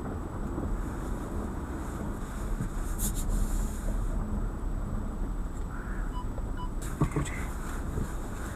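Steady low rumble of car noise from an Audi A4, with a few sharp clicks and two pairs of short faint beeps near the end.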